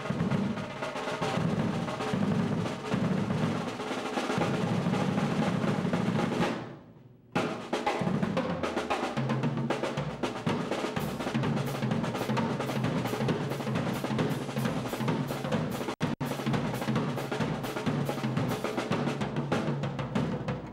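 Pearl drum kit with Sabian cymbals played solo through a single camera microphone: fast snare and tom rolls and fills over a steady double bass drum, with cymbal strokes. About seven seconds in the sound briefly dies away and cuts back in abruptly, and there is a split-second dropout about three-quarters of the way through.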